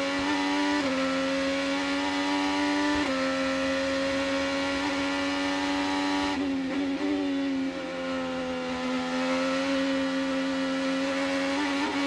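Onboard sound of a Chevrolet IndyCar's 2.2-litre twin-turbo V6 running at high revs on a street circuit, heard through the onboard camera. The note drops a step about a second in and again about three seconds in as it shifts up. Just past halfway the pitch wavers and dips briefly as the driver lifts and changes down, then it settles back on power.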